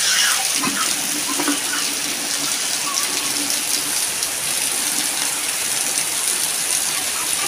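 Heavy rain falling steadily on trees and concrete, with water pouring off the roof edge and splashing onto the ground.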